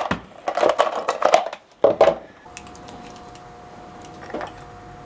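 Dishes and glassware clattering as they are handled on a kitchen counter for about two seconds, then quieter, with a faint steady hum and a single soft click a little past four seconds in.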